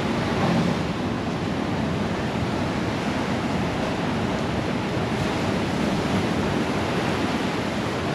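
Steady heavy rain pouring down without a break.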